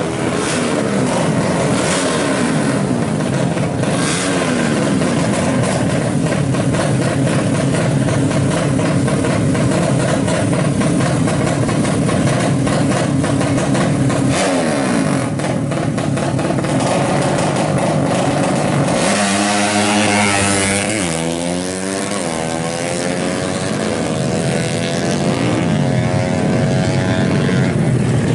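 Several tuned 200cc drag-bike engines revving hard, throttles blipped up and down over each other. About two-thirds of the way through, a single bike's engine takes over, its pitch dropping and rising through the gears and then climbing steadily as it accelerates.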